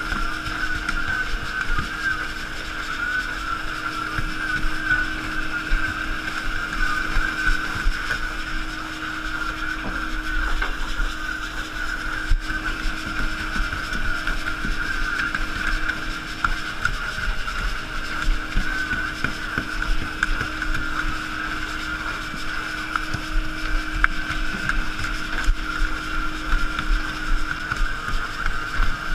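Boat engine running steadily under way, with a steady drone, and water and wind rushing along the hull.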